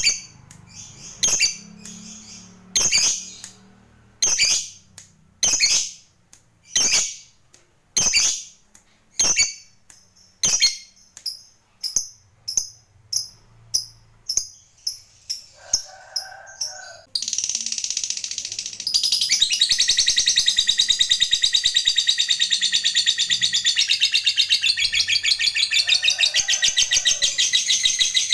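A lovebird calling, at first in sharp single shrieks about every second and a half. The shrieks come faster, and a little past halfway it breaks into one long rapid chatter that keeps going: the long trilling song keepers call ngekek panjang.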